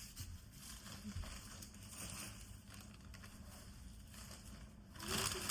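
Faint rustling and crinkling as clothes are handled, with a few soft ticks. It grows louder near the end.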